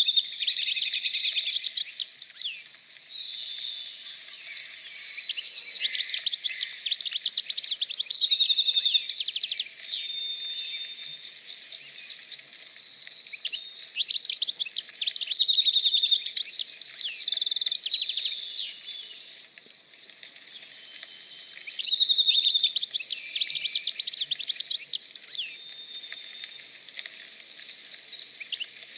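Many small birds chirping and trilling together in a dense chorus, coming in loud stretches with brief quieter lulls.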